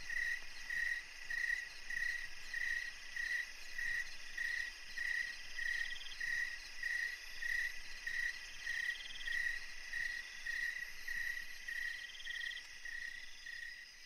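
Crickets chirping in an even rhythm, a little under two chirps a second, with three short higher trills about three seconds apart in the second half.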